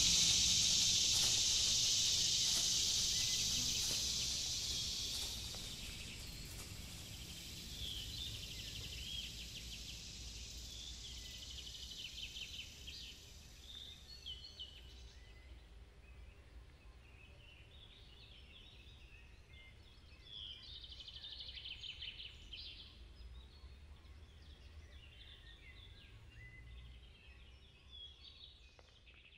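Outdoor nature ambience. A loud, steady, high hiss fades out over the first five seconds, then scattered bird chirps and calls continue over a faint low rumble and fade near the end.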